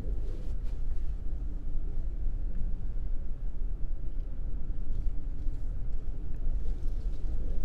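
Steady low rumble of a vehicle driving slowly, heard from inside the cab: engine and tyre noise.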